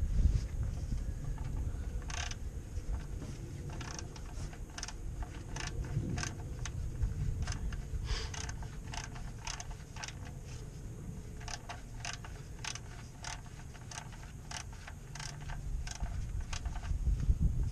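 Socket ratchet clicking as the 14 mm oil drain plug is backed out, a string of short, sharp clicks about one or two a second.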